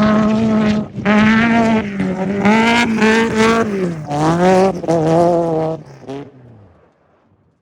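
Off-road race car engine revving hard at high rpm, with brief breaks and dips in pitch as the throttle is lifted. The pitch then drops and the sound fades out near the end.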